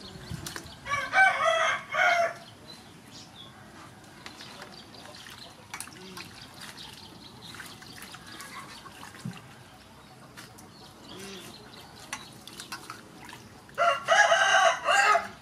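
A rooster crowing twice, about a second in and again near the end. Between the crows, water sloshes and drips softly as vegetables are washed by hand in a steel bowl.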